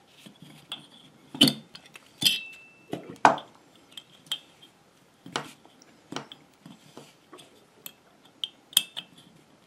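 Irregular metallic clinks and knocks of bolts, nuts, washers and tools being handled. One strike a little over two seconds in leaves a brief ringing note.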